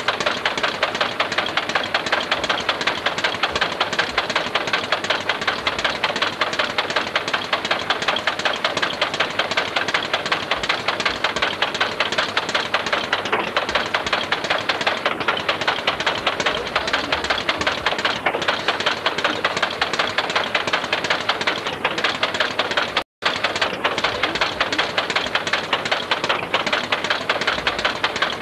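A small engine running steadily with a fast, even rattle, cutting out for an instant a little before the end.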